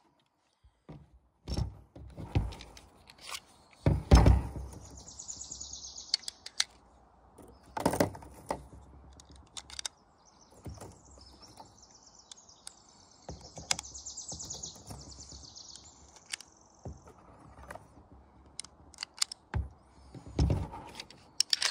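Thunks and clicks of a SAR K2-45 pistol and its ammunition being handled on a folding table, the loudest knock about four seconds in. Birds chirp in the background.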